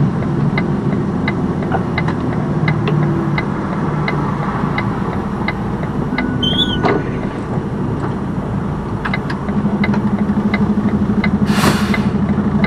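Semi-truck's diesel engine running steadily and settling into an even idle in the last few seconds, with a regular ticking about two or three times a second. A short hiss of air comes near the end.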